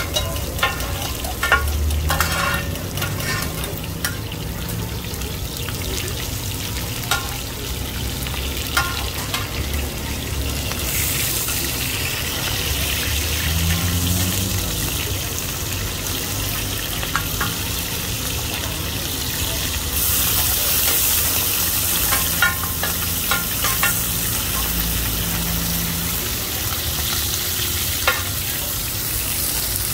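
Batter-coated mussels (hoi tod) frying and sizzling in oil on a hot pan, with sharp clinks and scrapes of a metal spatula against the pan. The sizzle gets louder and hissier about 11 seconds in and again about 20 seconds in.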